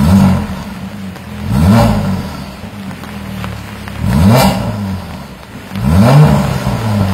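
Mercedes-AMG GLC43's twin-turbo V6 free-revving through an Armytrix variable-valve exhaust while parked: four short, sharp blips of the throttle, each rising and falling back to a steady idle. The first blip is already peaking as the sound begins, and the others come about two seconds apart.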